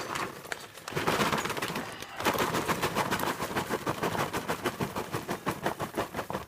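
Freshly popped microwave popcorn being shaken out of its bag into a bowl: a dense, rapid rattle of popcorn pieces, in two goes with a short break about two seconds in.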